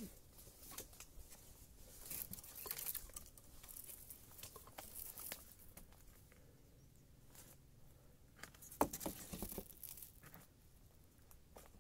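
Faint, sporadic rustling and crinkling, as of material being handled, with scattered light clicks and a sharper knock about nine seconds in.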